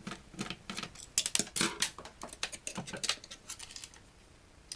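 Small screws being undone with a screwdriver from a plastic electronics housing: irregular sharp clicks and scratchy scraping, thinning out near the end.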